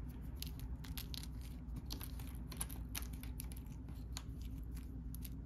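Faint, scattered clicks and rustling of small cardboard hex game tokens being gathered up by hand, over a low steady hum.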